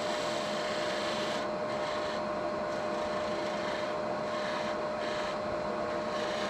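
Wood lathe running with a steady motor whine while a parting tool cuts into the spinning wood, a scraping hiss that eases and comes back a few times.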